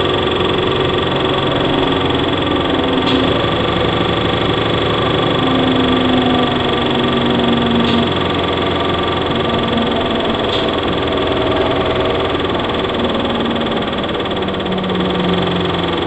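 Transit bus's Cummins ISL six-cylinder diesel engine running steadily, its pitch drifting up and down.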